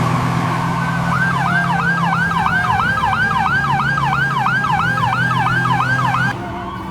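Emergency vehicle siren in a fast yelp, its pitch sweeping up and down about three times a second, over a steady low engine hum. It starts about a second in and cuts off suddenly near the end.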